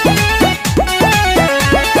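Bhojpuri film song music: a fast, even beat of notes that slide down in pitch, several times a second, over steady higher tones.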